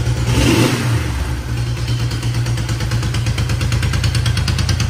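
A freshly rebuilt Honda CL350's air-cooled parallel-twin engine running moments after starting, with a brief rev about half a second in and then steady running.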